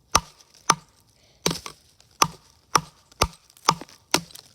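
An axe chopping into wood: about eight sharp strikes, roughly two a second.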